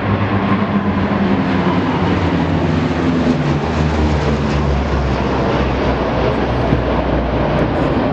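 Military aircraft flying overhead: a loud, steady engine noise whose low tones slowly fall in pitch as it passes.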